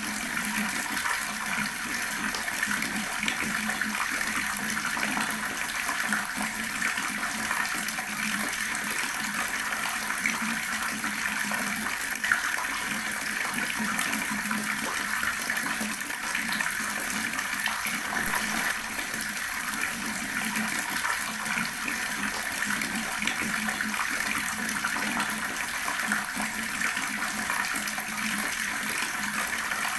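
Water running steadily from an outdoor tap and splashing below, an even, continuous pour.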